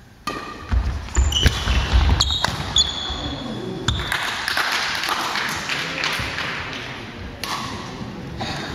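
Badminton rally on a wooden indoor court, starting about a quarter second in. Sharp racket hits on the shuttlecock mix with high shoe squeaks and thudding footsteps on the floor.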